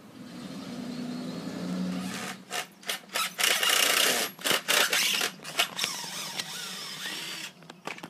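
A delivery van's engine hums and grows louder for about two seconds. Then a handheld power saw cuts into a wooden beam in a run of short, loud bursts for about five seconds, stopping near the end.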